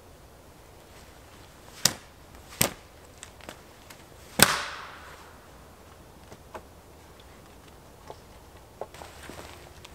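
Wooden poles and sticks knocking against each other as they are laid onto the frame of a stick A-frame shelter: a few sharp knocks about two seconds in, the loudest about four and a half seconds in with a short clatter after it, then lighter clicks of wood on wood.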